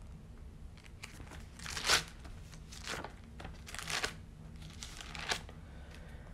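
Bible pages being turned by hand: a run of quiet paper rustles, the loudest about two seconds in and another about four seconds in, while looking for a passage.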